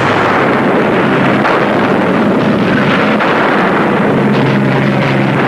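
Battle sound effects: a loud, steady rumble of propeller aircraft engines with a few sharp shots of anti-aircraft fire in the first half. A steady low engine drone stands out from about four seconds in.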